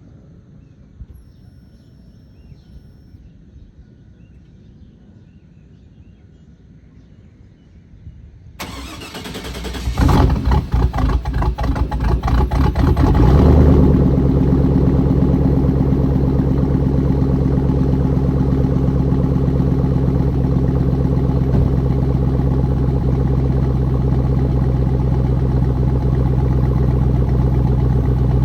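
Chevrolet Silverado's 4.8 L LS V8 cranked over by the starter for about three seconds, catching about 13 seconds in and settling into a steady idle. Quiet outdoor background before the cranking starts.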